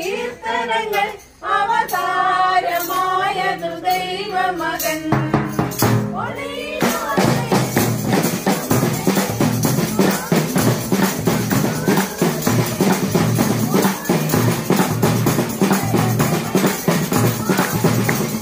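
Carol singing for about the first five seconds, then a bass drum and other percussion strike up a fast, steady beat under the singing.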